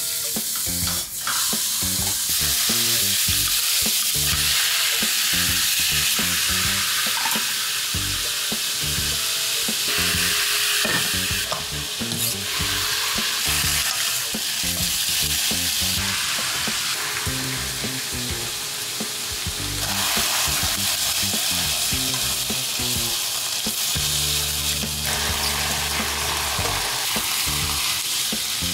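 Food sizzling steadily as it fries in a hot pan.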